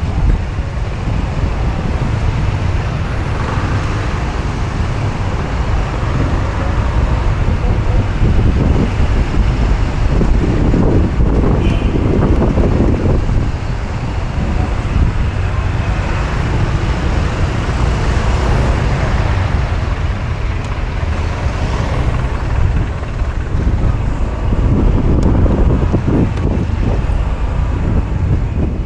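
Steady city road traffic and engine rumble from a moving vehicle, with a deep rumble throughout that swells louder twice, once a third of the way in and again near the end.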